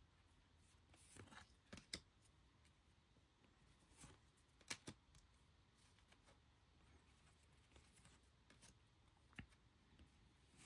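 Faint handling of trading cards: a few light clicks and flicks as cards are slid through by hand, over near-silent room tone.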